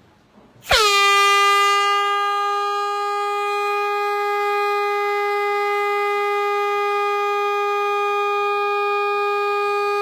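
Air horn sounding one long, loud, steady note. It starts suddenly about a second in with a quick drop in pitch, then holds one tone.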